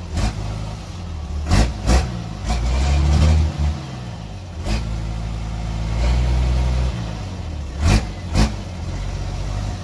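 Isuzu 6BD1-T turbodiesel inline-six, straight-piped with its blown-out muffler cut off, idling and revved up briefly twice: once about two and a half seconds in, and again about six seconds in. The engine is still cold and smoking. Several sharp thumps stand out among the exhaust sound.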